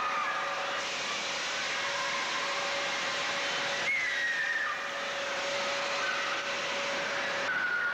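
Amusement arcade din: a steady rushing hubbub with a steady electronic tone that cuts off near the end and a few short wavering electronic tones from the machines and rides.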